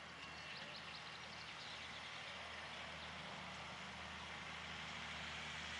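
Distant Fendt 712 tractor working a power harrow and seed drill, its engine a faint steady low drone that slowly grows louder. A few faint high chirps sound in the first couple of seconds.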